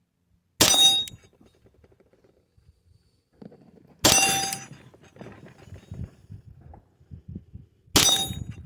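Three gunshots at the range, each a sharp crack with a short metallic ring, spaced about three and a half to four seconds apart.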